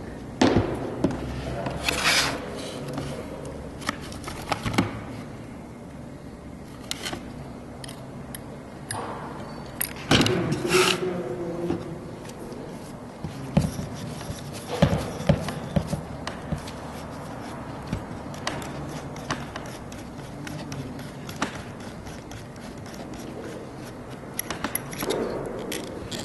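Irregular knocks, clicks and scraping of hard objects being handled.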